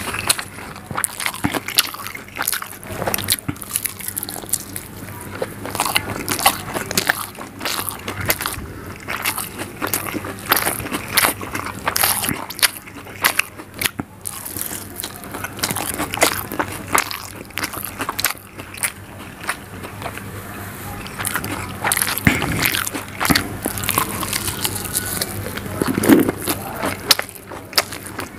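Close-miked eating: a person chewing soft egg omelette in curry gravy with the mouth open, with many short wet clicks and smacks throughout.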